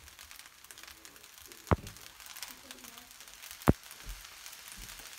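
Shrimp fried rice frying in a pan, a faint steady sizzle, with two sharp knocks about two seconds apart.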